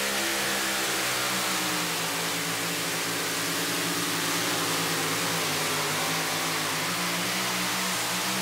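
Supercharged engine of a two-wheel-drive pulling truck running flat out under load as it drags the weight-transfer sled, loud and steady with its pitch wavering slightly.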